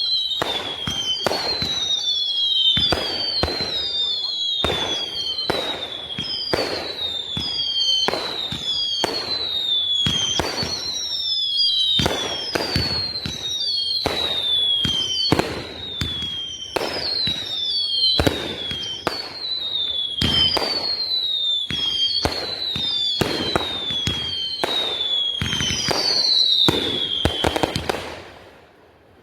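1.4G consumer fireworks firing a rapid string of whistling shots. Each is a high whistle falling in pitch alongside a sharp bang, coming about once a second, until they stop near the end.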